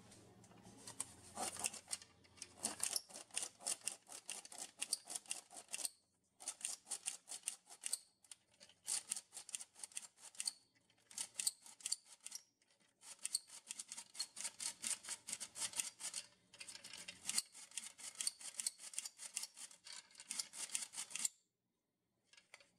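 Tin hand-crank flour sifter being cranked, its wire agitator scraping the mesh in rapid metallic scratchy clicks as flour falls into a stainless steel bowl. The cranking comes in runs of a few seconds with brief pauses and stops about a second before the end.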